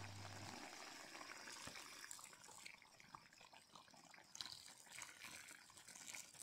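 Faint bubbling of chicken curry simmering in a metal karahi over a wood fire, with small crackles throughout; milk is poured into the curry near the end. A low hum sounds for the first half second.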